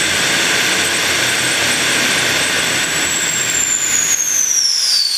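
Turbomachine TJ-1000 single-spool turbojet with a four-stage axial compressor, running with a loud rushing roar and a high compressor whine. About three seconds in, the whine starts to fall steadily in pitch as the spool slows down.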